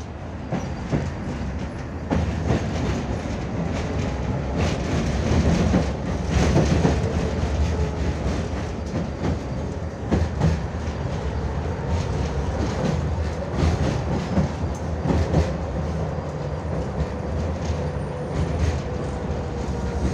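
A 1989 Tatra T6B5SU tram under way, heard from inside the passenger cabin: steady running noise of wheels on rails with frequent clacks and knocks over the track, a little louder for a few seconds in the middle.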